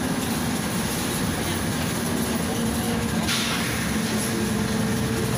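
Steady in-cabin running noise of a Volgabus 5270G2 city bus under way: its natural-gas Yuchai six-cylinder engine and tyres on the road, with a steady low whine. A short hiss comes about three seconds in.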